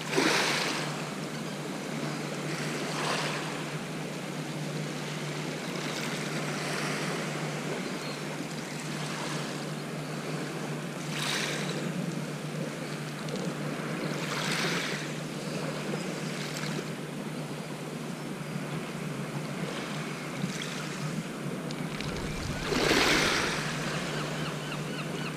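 Small waves washing onto a shingle beach: a steady wash with a swell breaking and running back every few seconds. Near the end, a spinning reel is wound with a faint, fast ticking.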